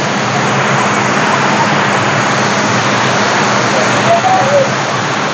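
Steady rush of water pouring down an artificial waterfall, heard close up and loud.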